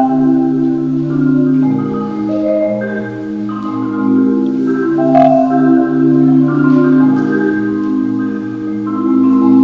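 Marimba music: layered notes held in rolls, shifting chord to chord about every second, with one sharp click about five seconds in.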